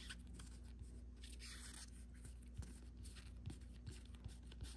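Faint rustling and light taps of Pokémon trading cards being flipped through by hand.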